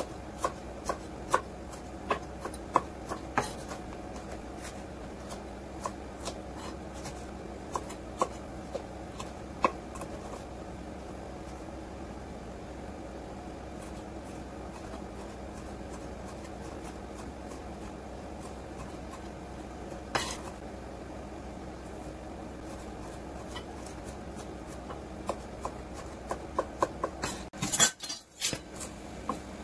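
Kitchen knife cutting red bell pepper and tomato on a wooden cutting board: scattered sharp knocks of the blade meeting the board, with long quiet stretches between them and a quick run of knocks near the end. A steady low hum sits underneath.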